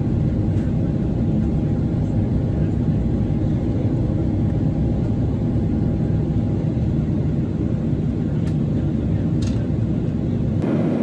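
Steady in-cabin noise of a Boeing 777-300ER on its descent: a low, even rush of airflow and GE90 engine hum heard through the fuselage, with a faint steady tone above it.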